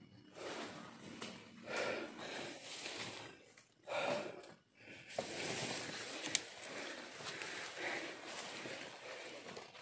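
Leaves and undergrowth rustling and snapping as someone pushes through dense forest brush, with heavy breathing close to the microphone in the first half.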